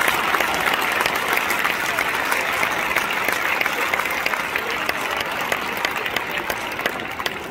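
Large stadium crowd applauding, a dense patter of many hands clapping that thins out toward the end.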